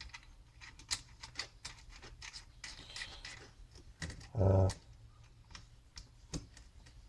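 Light clicks and scratchy handling noise of plastic parts as an accessory is pushed and locked onto a rotary tool by hand, with a brief low hum about halfway through.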